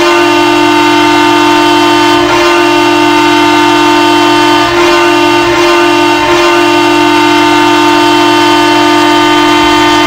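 Green Bay Gamblers hockey goal horn sounding one loud, steady, sustained blast with several tones together.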